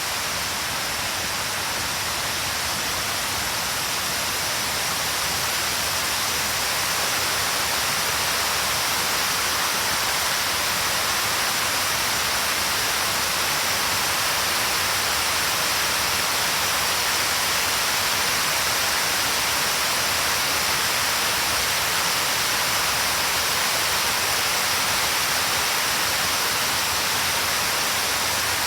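Waterfall: a steady rush of falling water that grows slightly louder over the first few seconds.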